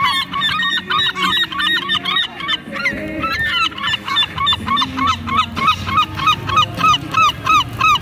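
A flock of herring gulls calling: many short overlapping calls, then from about halfway a fast regular series of loud yelping notes, about three a second.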